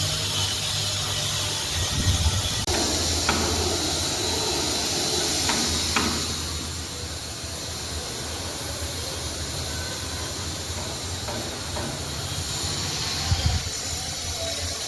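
Refrigeration vacuum pump running steadily with a low hum and hiss, evacuating a new split air conditioner's copper refrigerant lines before a leak check. A few light clicks and knocks sound over it, with a dull thump near the end.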